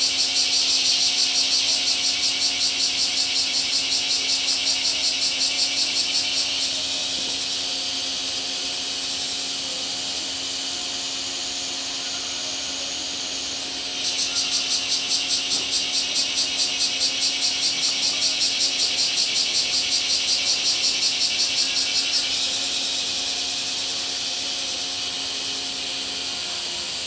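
Cicadas buzzing in a loud, rapidly pulsing chorus that dies down about six seconds in, swells again about halfway through and fades a few seconds before the end. A steady low hum runs underneath.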